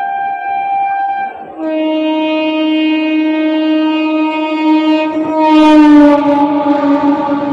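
Electric locomotive's horn sounding as the train comes in: a long higher note that stops about a second and a half in, then a longer lower note. The lower note is loudest and drops slightly in pitch a little before the end as the locomotive passes close, and the rumble of the passing train rises under it at the very end.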